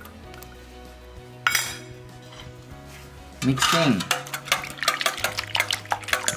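Raw eggs being beaten in a stainless steel bowl: a utensil clinks rapidly against the metal, several strokes a second, starting a little past halfway. A single sharp metallic clank comes earlier.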